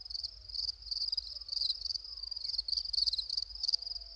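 Crickets chirping: a steady run of short high chirps, about three a second. Used as the stock 'awkward silence' effect, it stands for a question met with no answer.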